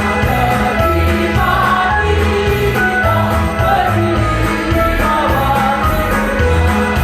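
A choir song with instrumental accompaniment over a steady bass beat.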